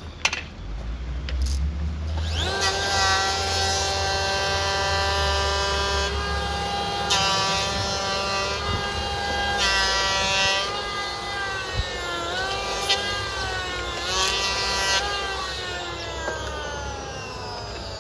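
A power tool's motor starts about two seconds in and runs at a steady high whine. Its pitch dips twice, briefly, about two-thirds of the way through, then sags slowly near the end, with a few sharp clicks along the way.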